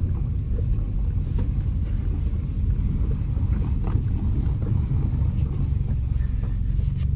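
A 2001 Toyota Corolla's 1.8-litre four-cylinder running, a steady low rumble; the car has an exhaust leak.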